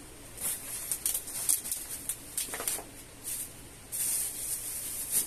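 Plastic wrapping and brown packing paper rustling and crinkling in irregular bursts as wrapped chair parts are handled in a cardboard box.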